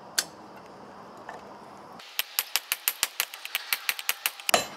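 Hand hammer striking a red-hot piece of leaf-spring steel on a small steel block anvil. A single clink comes just after the start, then from about two seconds in a quick run of sharp metallic blows, about six a second, ending in one heavier blow.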